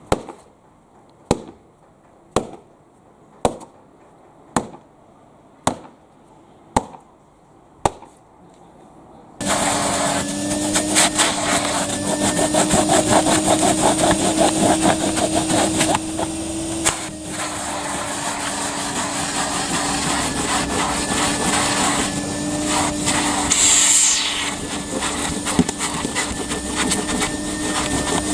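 Eight sharp knocks, about one a second. Then, about nine seconds in, a Numatic Hetty tub vacuum cleaner comes on suddenly and runs steadily with a humming motor note that dips slightly in pitch now and then.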